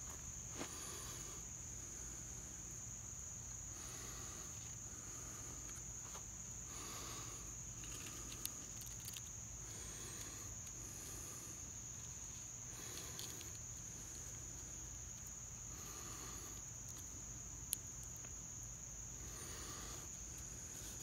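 Steady high-pitched chorus of insects. Beneath it, faint scraping every two to three seconds as a knife carves a notch in a wooden hearth board, with two sharp clicks.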